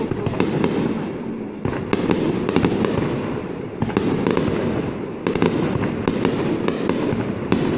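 Fireworks display: a continuous rumble of shell bursts with many sharp bangs and crackles following one another, several a second.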